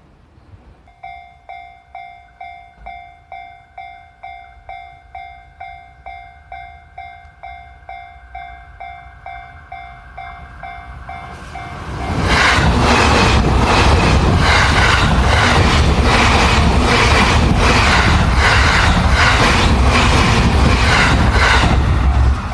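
Japanese level-crossing alarm ringing in a steady repeating ding about twice a second. About twelve seconds in, an electric train passes close by, its wheels clattering in a regular rhythm over the rail joints, loud enough to drown out the alarm for about ten seconds.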